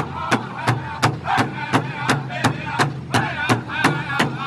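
Powwow drum group: several men beat one large shared hide drum with drumsticks in a steady, even beat of about three strokes a second while singing together.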